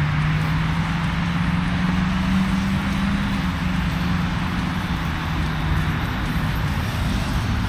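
Motor vehicle engine running steadily, its hum rising slightly in pitch and then easing back, over a steady hiss.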